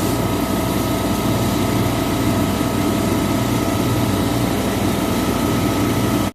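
Refrigeration machinery running with a steady mechanical hum: compressor and fan drone holding a few constant tones. It cuts off abruptly at the very end.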